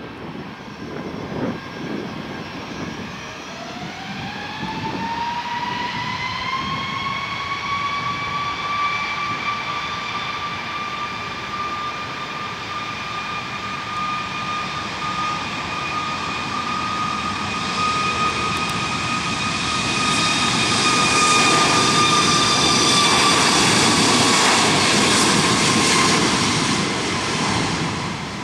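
Southwest Boeing 737 twin jet engines spooling up to takeoff thrust: a whine rises in pitch over a few seconds, then holds steady. It grows louder under a rushing jet noise as the jet rolls down the runway, peaks, then fades a little as the whine dips slightly near the end.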